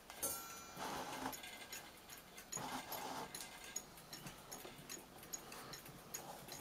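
Triple fusee bracket clock movement ticking evenly, a little over two ticks a second, as it runs on test after being cleaned and rebushed. Patches of rustling noise come and go over the ticking, with a brief scrape near the start.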